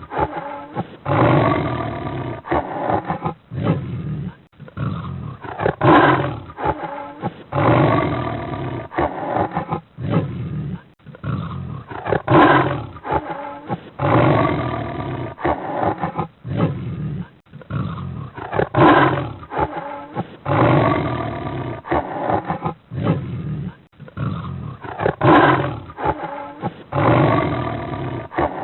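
Big cat roaring and growling, labelled as a cheetah, though cheetahs do not truly roar. The same pattern repeats about every six and a half seconds: a short loud call, then a longer, wavering rumbling one.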